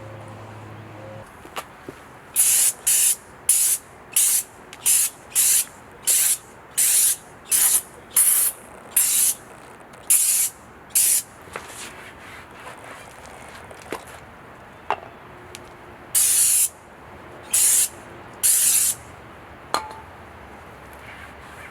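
Hand trigger spray bottle spritzing detailing spray onto the car: about a dozen quick, evenly paced hissing squirts, a pause with a few small clicks, then three longer squirts near the end.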